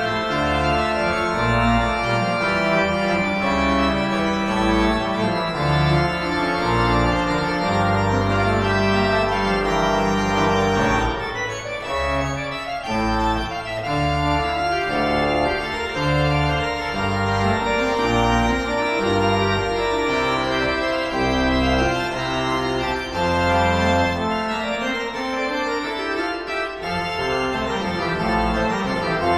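Pipe organ playing: held chords over a bass line that moves in the pedals.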